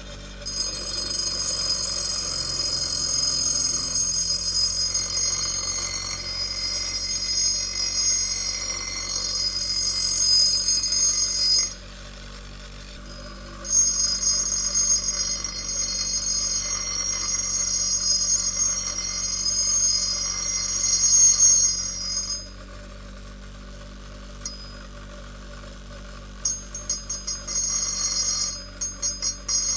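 Bench grinder running with an axe head pressed against the spinning wheel: two long grinding passes, each several seconds, a shrill high-pitched ring over the motor's steady hum. Near the end come a string of short, quick touches of the blade to the wheel.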